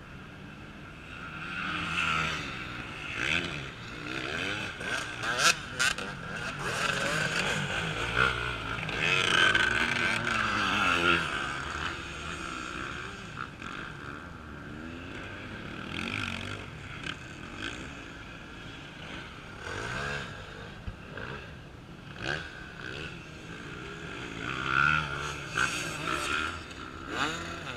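Off-road enduro motorcycle engines revving up and down again and again as riders work through a log obstacle. The busiest revving comes in the first half and again near the end, with quieter spells between.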